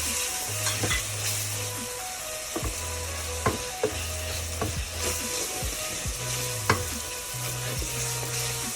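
Onion, ginger-garlic paste and ground spices sizzling in hot oil in a pressure cooker, with a spoon clicking against the pot at irregular moments as the masala is stirred and fried.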